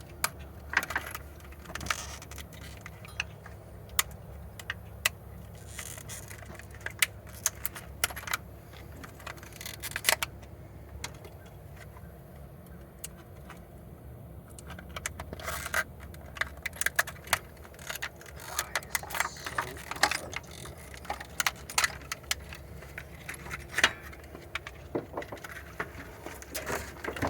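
Loose steel bolts clinking and rattling against each other and against metal, picked through by hand in a search for the right replacement bolt. The clinks come in irregular clusters, busiest near the start and in the second half, over a steady low hum.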